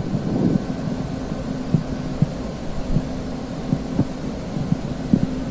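A steady low hum with soft, irregularly spaced low thumps, roughly two a second.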